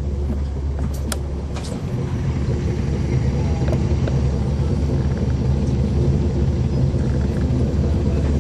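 Caterpillar C13 diesel engine of a 2009 NABI 416.15 transit bus running, heard from inside the bus cabin; its low rumble grows louder from about two seconds in. A couple of sharp clicks come about a second in.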